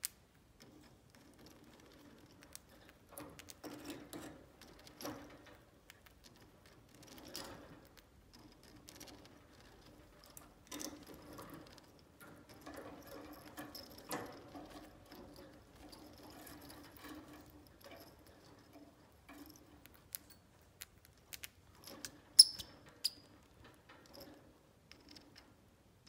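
Budgerigar pecking and nibbling at a wooden perch toy: scattered small clicks and taps, with one sharper click late on.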